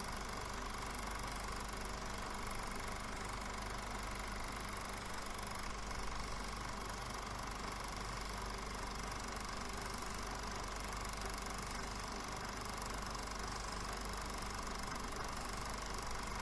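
Film projector sound effect, the mechanism running steadily with an unchanging whirr.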